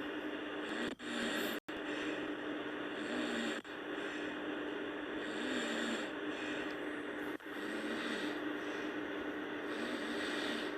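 A sleeping person snoring and breathing heavily over a steady background hum, with faint swells about every two seconds. The sound cuts out for an instant a few times.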